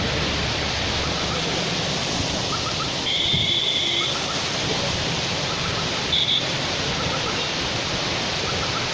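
Heavy rain pouring steadily, an even hiss. About three seconds in, a brief high steady tone sounds over it for about a second.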